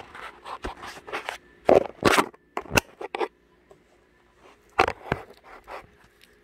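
Handling noise as a portable basketball hoop's backboard and rim are shifted about on the carpet: a run of short scrapes, knocks and rattles, loudest about two seconds in and again near five seconds.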